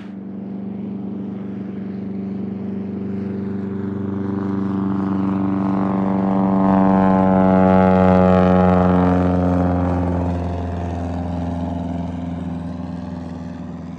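A passing engine drones with a steady hum. It swells to its loudest about eight seconds in, then fades, its pitch dropping slightly as it goes by.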